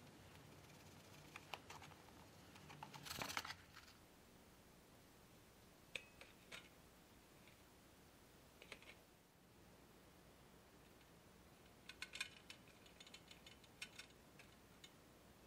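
Near silence with faint, scattered clicks and taps from hand work in a plastic tub: a brief scrubbing noise about three seconds in, and a run of light clicks near the end.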